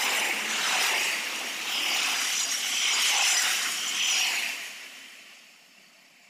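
An express train of LHB coaches passing at speed: a steady rush and rattle of wheels on rails that swells and dips, then fades away from about four and a half seconds in as the last coach goes by.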